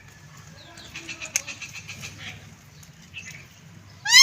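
Green ringneck (rose-ringed) parakeet making faint soft chirps and clicks, then starting a loud arching squawk right at the end.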